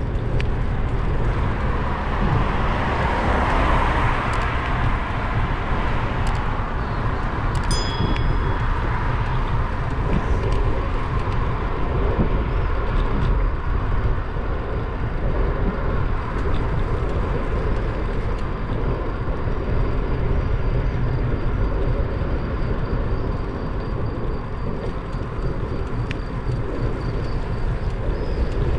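Steady rumble of wind buffeting the microphone and road noise from a vehicle moving along a street, with a brief high chirp about eight seconds in.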